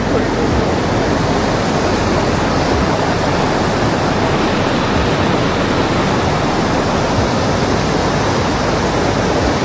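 Mountain river rushing over boulders and rapids: a steady, unbroken wash of water noise.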